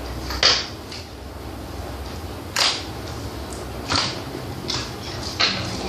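Homemade jelly slime squeezed and worked by hand, giving about five short wet squishes a second or so apart.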